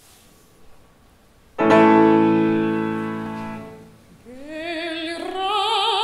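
A grand piano strikes a loud held chord about a second and a half in and lets it die away. Then a mezzo-soprano begins singing opera with a wide vibrato, her line climbing.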